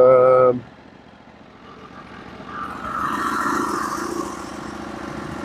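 Portable band sawmill's engine running, opening with a loud steady-pitched tone that cuts off after about half a second; the engine then runs quietly and picks up again about two and a half seconds in with a rising hiss and a steady hum.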